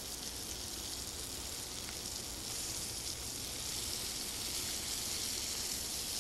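Thick juices of sausage, tasso and vegetables sizzling steadily in a pot as they reduce and brown on the bottom, growing a little louder partway through as cut-up raw chicken is tipped in.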